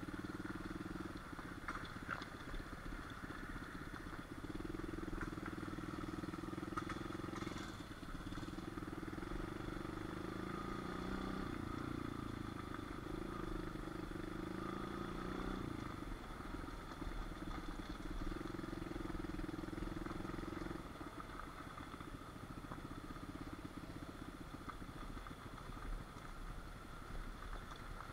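Small pit bike engine running on a trail ride, its note rising and falling with the throttle, easing off for the last several seconds.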